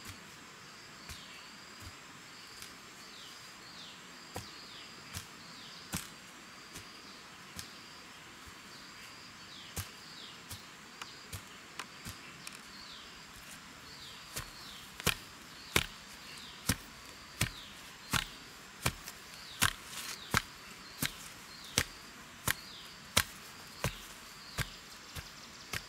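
Wooden pole rammed repeatedly into loose soil, tamping the earth around a freshly set post: dull knocks about every three quarters of a second, much louder from about halfway through. Behind them a high chirp repeats over and over.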